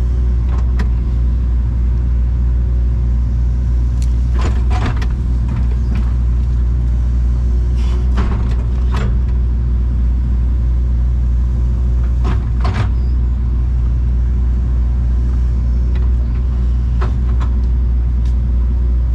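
Excavator engine running steadily under working load, heard from inside the cab, with several sharp knocks from the machine about four, eight and twelve seconds in.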